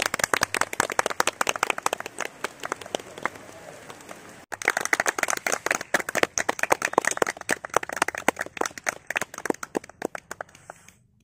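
Applause: many hands clapping, with a sudden short break about four and a half seconds in, then dying away near the end.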